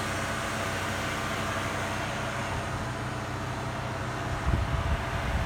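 A steady mechanical hum with several steady low tones, with a few low thumps about four and a half seconds in.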